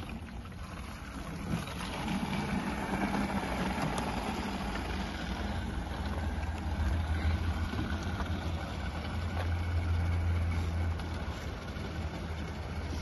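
Water gushing from a hand-lever street water pump into plastic jerrycans, with a low steady hum underneath that swells in the middle.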